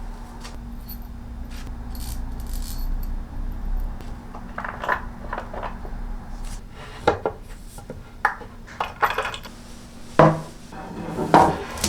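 Irregular light clinks and knocks of hard kitchenware being handled and set down, beginning about four seconds in after a low rumble.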